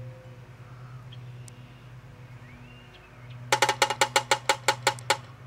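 Woodpecker hammering on wood: a quick, evenly spaced run of about a dozen sharp knocks lasting under two seconds, starting past the middle.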